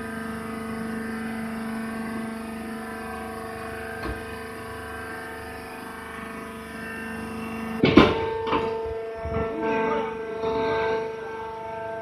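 Hydraulic rice husk baling machine running with a steady, multi-tone hum. About eight seconds in comes a loud sharp clank, then a few lighter knocks, and the hum settles at a different pitch.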